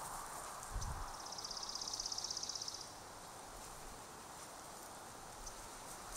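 A small songbird's high, fast, dry trill lasting about two seconds, starting about a second in, over a steady outdoor hiss. Just before the trill there is a low thump.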